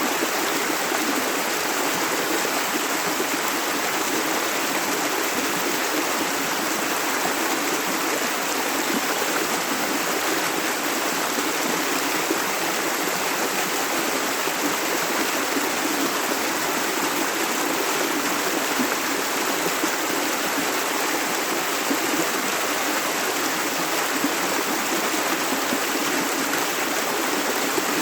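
Clear, shallow river water flowing steadily over stones, a continuous rushing with small gurgles.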